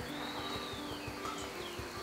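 Background music of held notes that step from one pitch to another, with short high falling chirps over it.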